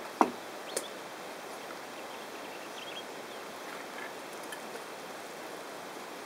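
Open-air ambience: a steady hiss, with a sharp click just after the start and a smaller one under a second in, and a few faint high bird chirps.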